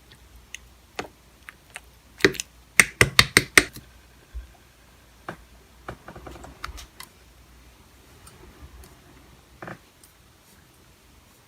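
Clear slime mixed with beads being pressed and poked by hand, giving a run of sharp clicks and pops. The clicks are loudest and quickest about two to three and a half seconds in, with scattered softer ones after.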